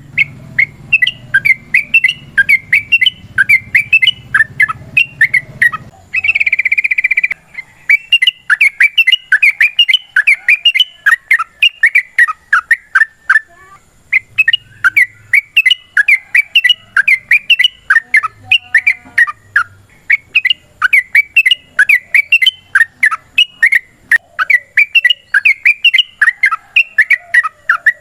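Yellow-vented bulbul (trucukan) singing a long, rapid fighting song of quick repeated chattering notes. About six seconds in, a brief harsher drawn-out note interrupts it, and there is a short pause near the middle.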